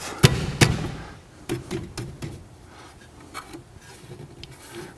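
Handling knocks from a wall-mounted pressure washer's metal shelf and fittings being shifted by hand: two sharp knocks in the first second, a few lighter clunks a little later, then faint rubbing.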